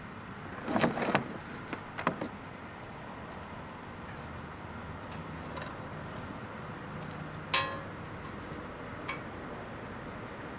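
Ice-fishing gear knocking and clattering as it is lifted out of a hard plastic sled and set down. There is a cluster of knocks about a second in and two more soon after, then one sharper clank with a short ring at about seven and a half seconds, over a steady hiss.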